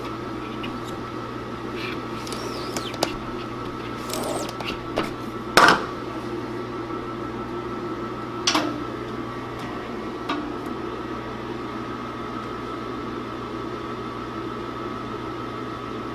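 Knocks and scraping from working a manual screen-printing press, one sharp knock about five and a half seconds in and smaller ones later. Under them runs a steady machine hum with a high whine.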